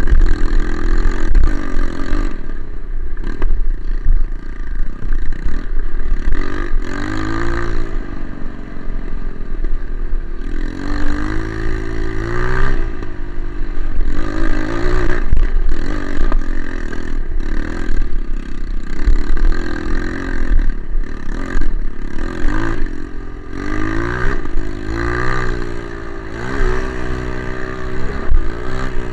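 Single-cylinder four-stroke trail motorcycle being ridden, its engine revving up and dropping back again and again through gear changes and throttle work.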